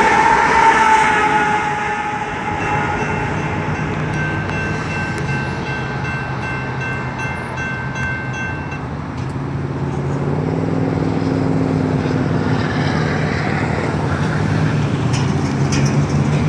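The diesel locomotive at the rear of a BNSF coal train passes close by and fades away after the first couple of seconds. A distant train horn then sounds for several seconds, and a low rumble of road traffic grows near the end as the crossing opens.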